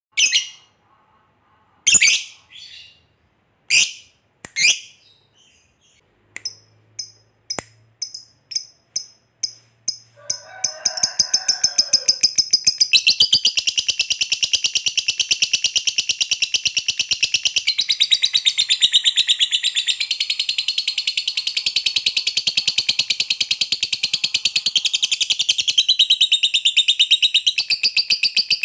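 Lovebird calling: a few sharp chirps, then a quickening run of short chirps that about ten seconds in breaks into a long, continuous, very rapid chattering trill. This is the long 'ngekek' trill prized in fighter lovebirds.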